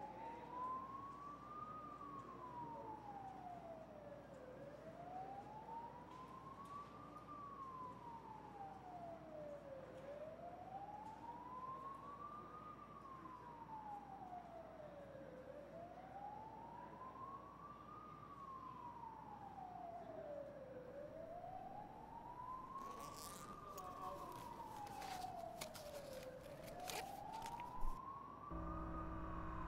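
Emergency-vehicle siren wailing, its pitch rising for about two seconds and falling for about three, over and over at an even pace. A few clicks and rattles come in near the end.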